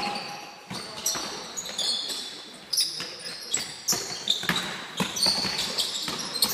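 A basketball bouncing on the floor of a large sports hall during play, with many separate knocks, and sneakers squeaking on the floor.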